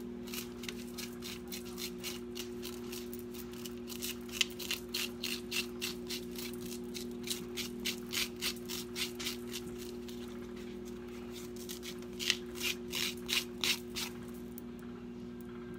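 A handheld scoop scraping the stringy pulp and seeds out of a piece of raw pumpkin, in quick rasping strokes of about three a second. The strokes pause for a few seconds around ten seconds in, then start again. A steady low hum runs underneath.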